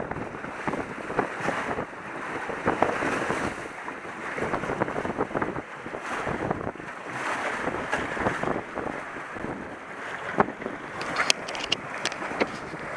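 Wind buffeting the microphone over water rushing and splashing along the hull of a small sailing trimaran under way, rising and falling in gusts. A few sharp ticks about eleven seconds in.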